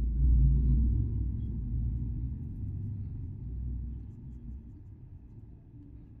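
A low rumble that swells at the start, then fades away over about four seconds.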